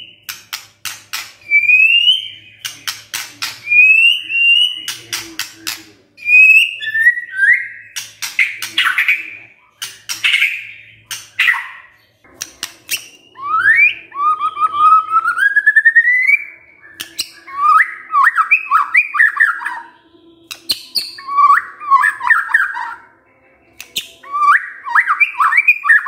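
White-rumped shama singing in bursts. Short rising whistles are mixed with fast, dry clicking rattles (the shama's 'kretekan'). About halfway there is one long rising whistle, followed by repeated quick chattering phrases.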